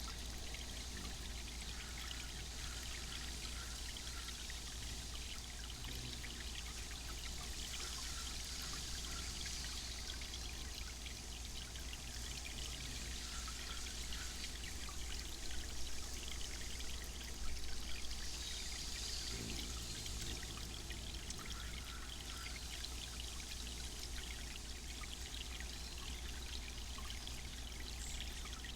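Garden water fountain splashing and trickling steadily, with a low steady hum underneath and a few slightly louder splashes around the middle.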